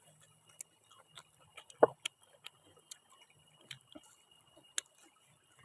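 Someone eating raw vegetables close to the microphone: a scatter of short, crisp crunches and mouth clicks at irregular intervals, the loudest a little under two seconds in and near the end.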